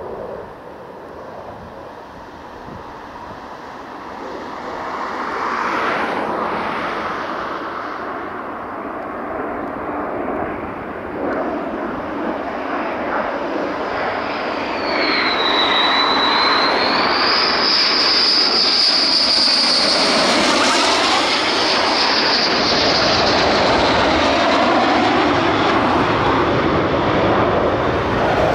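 Jet engines of US Air Force F-15E Strike Eagle fighters flying by low. The noise builds steadily, with a high whine that dips and then climbs about halfway through, and is loudest in the second half.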